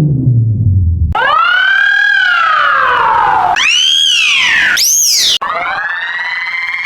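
Edited variations of the German emergency-alarm siren sound, spliced one after another. A siren winds down, then about a second in a new one cuts in, rising and falling. Abrupt cuts bring in faster, higher-pitched wails, including a very short high one about five seconds in, and near the end another rises and holds.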